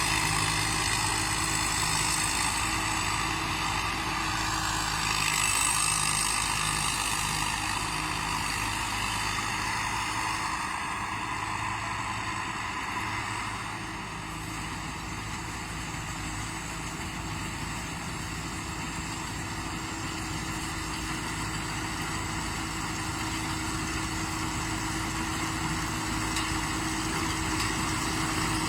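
Combine harvester running steadily: engine and machinery with a constant hum of several steady tones, easing a little in the middle and building back up near the end.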